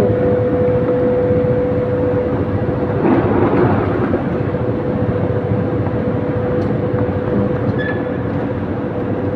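Vehicle in motion: a steady motor whine over continuous rumbling running noise, with a brief louder rush about three seconds in.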